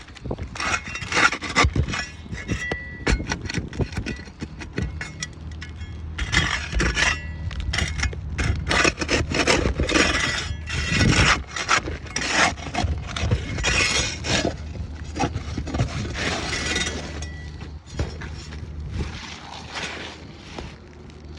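Repeated scraping and rubbing strokes against asphalt roof shingles, with occasional clinks, as a shingle is worked loose for replacement.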